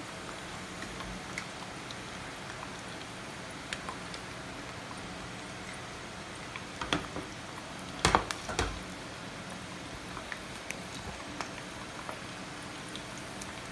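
Hot frying oil in a pan on a gas stove gently sizzling and crackling, with a few sharp pops or clicks, the loudest cluster about eight seconds in.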